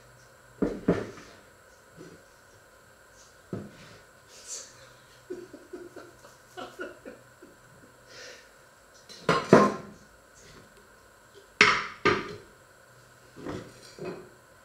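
Stainless-steel pots and lids clattering in irregular metal knocks, the loudest two near the middle and about three-quarters of the way through, with a short quick rattle between. A faint steady hum runs underneath.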